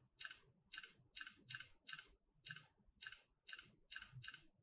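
Smartphone camera shutter sound playing over and over as photos are taken in quick succession: faint short clicks, about two a second, some in close pairs. This is a test of how fast the Infinix Zero 30's camera shutter responds.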